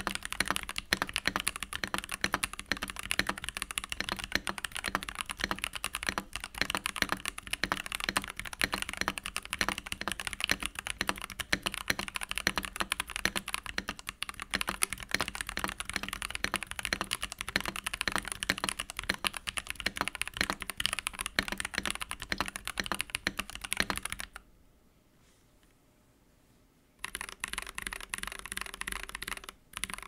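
Fast, continuous typing on a NuPhy Halo65 mechanical keyboard fitted with tactile Gateron G Pro Brown switches: a dense run of keystrokes. About three quarters of the way through, the typing stops for roughly three seconds, then starts again.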